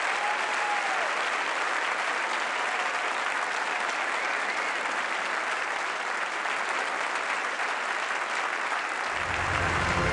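A large audience applauding steadily. Low music comes in about a second before the end.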